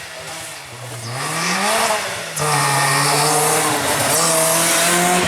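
Rally car engine at full throttle: the revs rise over the first two seconds, then about two and a half seconds in it gets suddenly much louder and holds a high, steady note with a strong hiss of tyres and road noise as the car passes close by.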